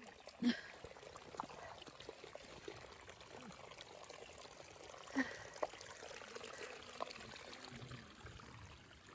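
Faint trickle of water running down a wet, rocky footpath, with a few scattered footsteps on the stones.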